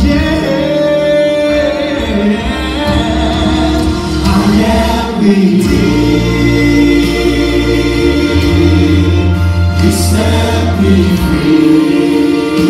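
Gospel song sung by a male soloist with a mixed choir over instrumental accompaniment, with long held low bass notes.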